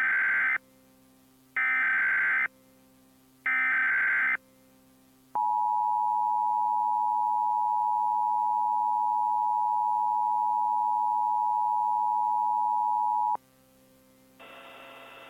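EAS SAME header from a DASDEC encoder sent as three short bursts of digital data tones about two seconds apart, followed by the two-tone EAS attention signal held steady for about eight seconds before cutting off sharply. Together they open an Emergency Action Notification alert. A low hiss and hum come in near the end.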